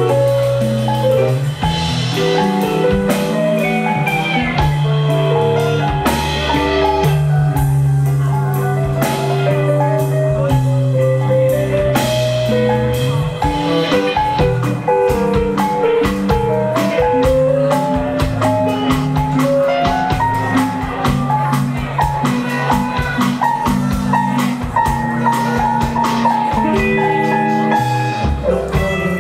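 Live band playing an instrumental passage of an MPB song: electric bass and drum kit with percussion under a stepping lead melody.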